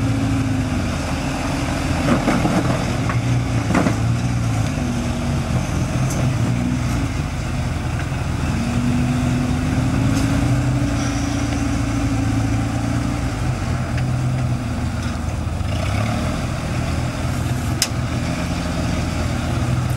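Truck engine running at a low, fairly steady speed, its pitch drifting slightly, with a few sharp knocks or rattles.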